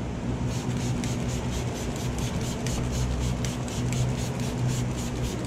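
Rapid back-and-forth rubbing strokes on a surface, about five a second, over a steady low hum.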